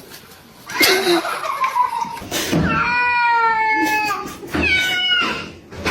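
Domestic cat yowling: long, drawn-out wailing calls starting about a second in, the longest held for over a second.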